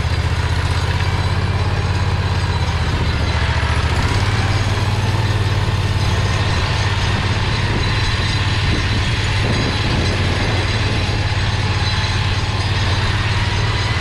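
Predator 670 V-twin engine running steadily while the go-kart is driven along, its low note shifting about four seconds in.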